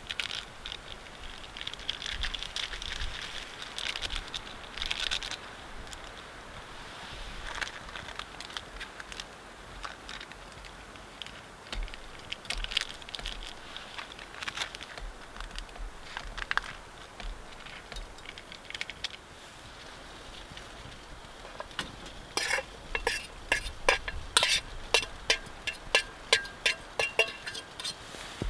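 Quiet handling and rustling with scattered small clicks, then, in the last several seconds, a quick run of sharp, ringing metal clinks from a steel cooking pot and its lid on a small wood stove.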